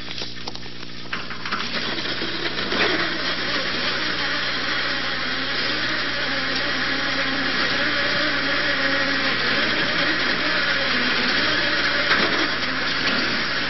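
Chairlift running away backwards with no brake on: a steady mechanical whirring and rushing that grows gradually louder as the lift speeds up, over a constant low hum. The loaded chairs on the heavy side are dragging the haul rope and bullwheel in reverse after the normal stop was pressed instead of the bullwheel brake.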